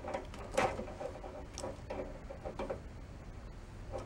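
Faint handling sounds of multimeter test probes and wires being worked on a small switch's terminals, with a few light clicks and scrapes.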